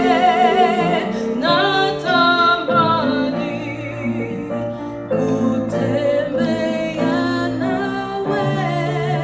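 A song: a singer holding long notes with vibrato over sustained instrumental accompaniment.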